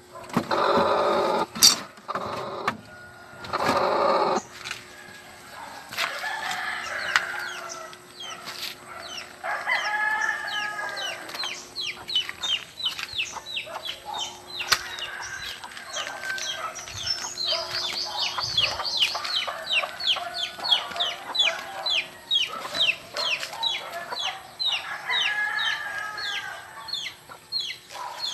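Free-range chickens in a yard clucking, with a rooster crowing, over a long run of short high chirps at about three or four a second. Several loud sounds come in the first four seconds.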